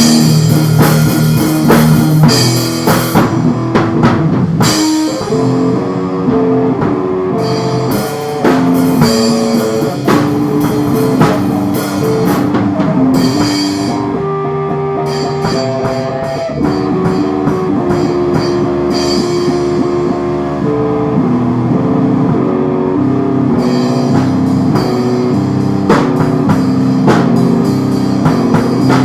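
Instrumental lo-fi rock music: electric guitar and drum kit playing together, with shifting melodic guitar notes over a steady beat.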